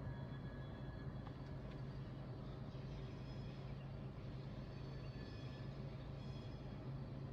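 Steady low hum and rumble of a CSX hopper train rolling slowly across a steel trestle, heard through an open car window, with faint brief high tones now and then.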